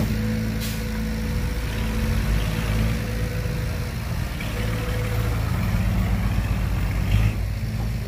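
Heavy diesel earthmoving machinery running steadily at a low rumble, with a faint steady whine above it and a brief louder knock about seven seconds in.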